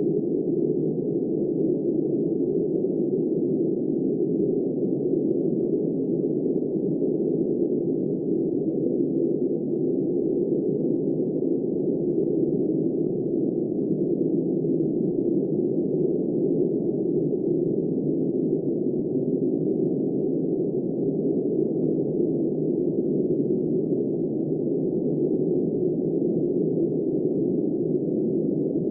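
Steady, muffled, low-pitched rushing of wind noise, even throughout, with no gusts or swells.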